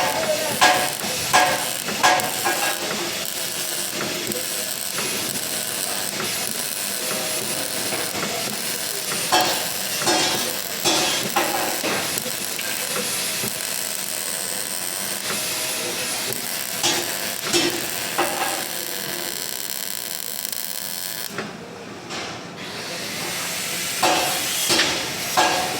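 MIG welding arc crackling and hissing steadily, with a few sharp metal knocks; the arc cuts out for about a second and a half near the end, then starts again.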